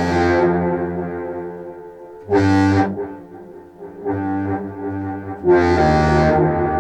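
Contrabass clarinet played through a Walrus Fable granular delay pedal, heard over studio speakers: low sustained reedy notes layered with delayed repeats. Fresh, brighter attacks come about two and five seconds in, with a softer stretch between them.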